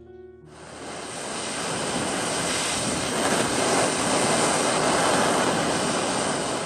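Jeweller's gas torch flame hissing steadily while it heats a coil of gold wire on a soldering block, annealing it. The noise comes on about half a second in and builds over the next second or two.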